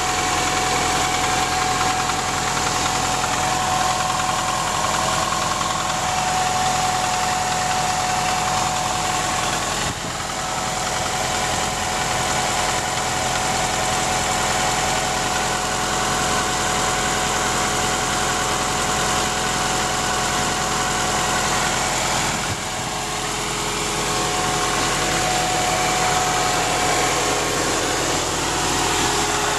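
Skoda Felicia 1.6 MPI (AEE) four-cylinder petrol engine idling steadily, with a steady high tone running through the engine noise. These are the first audible symptoms of an engine failure later diagnosed as worn piston rings and valve stem seals, a damaged first cylinder and a cylinder head needing overhaul.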